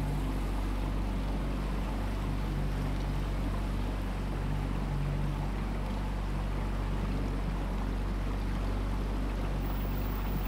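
Boat engine running steadily at cruising speed, a low even hum under a steady hiss of water and air.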